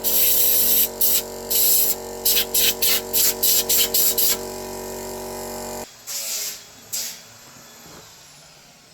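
About a dozen short hissing bursts of spray, quick and irregular, over a steady hum that stops suddenly about six seconds in; two more brief hisses follow.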